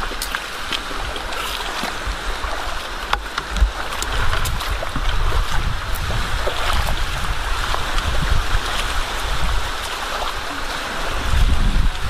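Steady rush of shallow seawater with wind buffeting the microphone in uneven low gusts, and scattered small clicks and knocks from stones.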